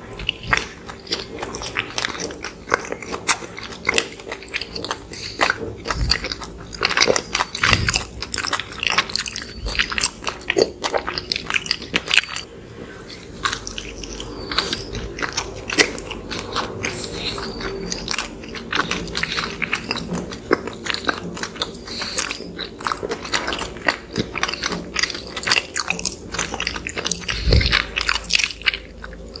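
Close-miked chewing and biting of soft, fluffy cinnamon rolls, an irregular run of small wet mouth clicks.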